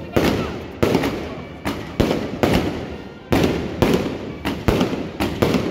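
Aerial fireworks bursting close by in rapid succession, about two sharp bangs a second, each one fading away before the next.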